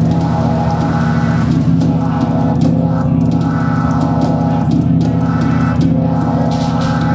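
Live-coded electronic music: a dense low drone under rapid pulsing, with a cluster of mid-range tones swelling and fading about every second and a half.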